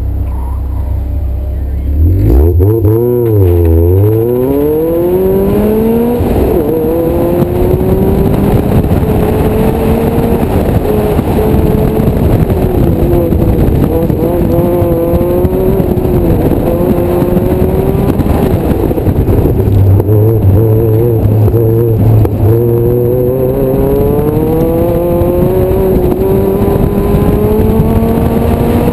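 Mazda MX-5 Miata's four-cylinder engine on an autocross run: it launches hard about two seconds in, the revs swinging up and down, then climbs and falls repeatedly through upshifts, lifts and full-throttle stretches around the cone course.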